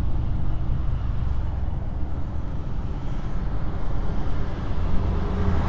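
Honda PCX 160 scooter's single-cylinder engine running at low speed in traffic, with road noise: a steady low drone that grows louder near the end.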